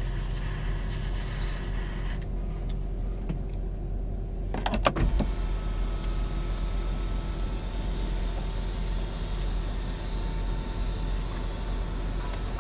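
Steady low hum inside a vehicle cabin. A high hiss drops out about two seconds in, and a quick cluster of clicks comes near five seconds, after which a faint steady high tone sets in.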